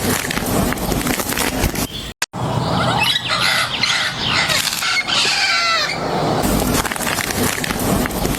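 Wild green parrots calling, a cluster of gliding calls over a dense background of rustling noise, strongest a few seconds in. There is a brief dead gap about two seconds in.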